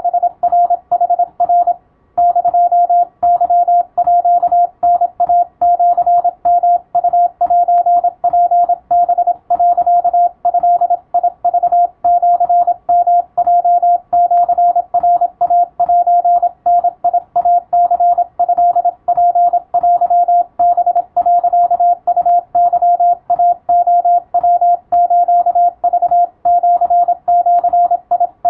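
Morse code (CW) sent as a single steady high tone keyed on and off in dots and dashes, with a faint hiss under it. It starts suddenly, pauses briefly about two seconds in, then runs on without a break.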